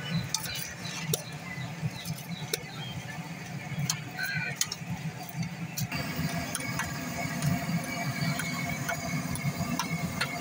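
Busy street ambience: a steady noise of traffic with scattered sharp clicks and clatter throughout, and a change in the background about halfway through.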